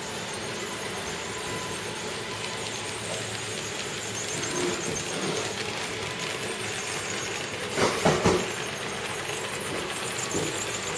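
HO-scale model trains running on the layout's track: a steady whirring rumble of motors and metal wheels with a thin squeal. About eight seconds in comes a brief burst of louder clattering.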